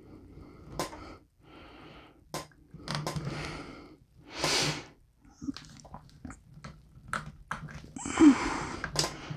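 Small metal clicks and knocks of a rifle muzzle brake and its self-timing lock nut being gripped and twisted by hand on the threaded barrel, among several sharp breaths through the nose, the longest and loudest near the end.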